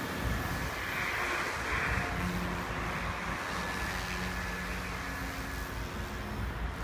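Electric SAB Goblin 420 RC helicopter flying past overhead: a rotor whoosh with a thin, steady motor whine, swelling and fading as it passes.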